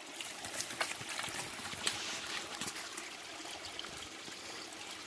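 Shallow stream running and trickling, with small sharp splashes and drips scattered through.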